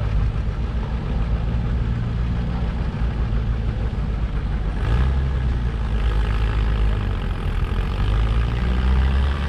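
Oliver 880 tractor engine working hard under load while pulling a weight sled: a steady low engine drone that grows stronger about five seconds in.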